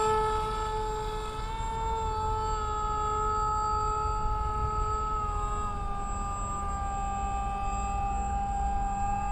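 Electric motor and propeller of a foam radio-control F-16 model in flight: a steady whine with a few overtones, dipping slightly in pitch about five and a half seconds in.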